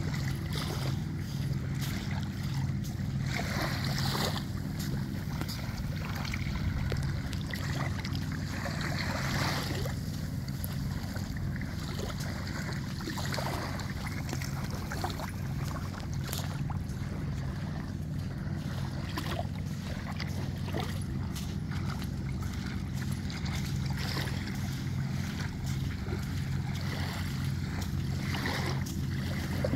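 Steady low drone of a boat engine out on the sea, with small waves washing softly on the sand every few seconds.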